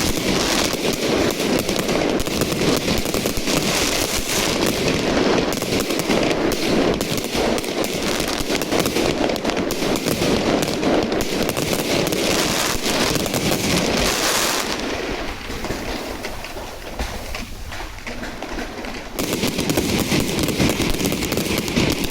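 Fireworks display going off in a dense, rapid barrage of bangs and crackles, easing off for a few seconds past the middle before building up again.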